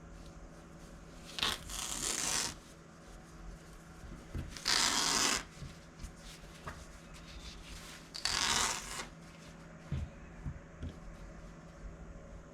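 Old cloth being ripped away from an old paper print: three raspy tears, each about a second long, with small clicks and rustles between them.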